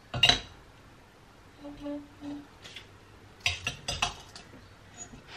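Glass pan lid clinking and clacking against the rim of a tiny rose-gold saucepan as it is set down and shifted about: a sharp clack just after the start, then a quick cluster of clinks about three and a half to four and a half seconds in. The lid is too big for the pan and won't sit steady on it.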